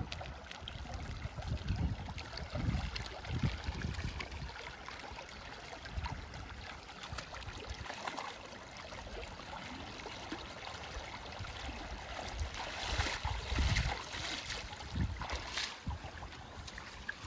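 Shallow canal water rushing and trickling past a man's legs, with splashing as he works with his hands in the water, loudest about three-quarters of the way through. Gusts of wind buffet the microphone now and then.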